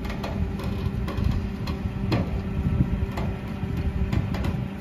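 An engine or motor running steadily with an even hum, with scattered clicks and knocks over it.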